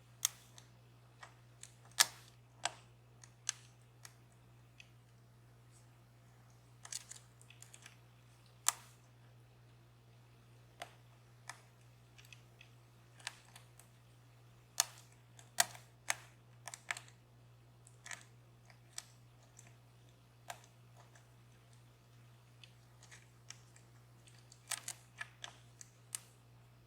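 Irregular sharp metallic clicks and taps of a lock pick and tension wrench working the pin stacks of a DOM Plura lock cylinder, whose T-pins bind at the shear line. A steady low hum runs underneath.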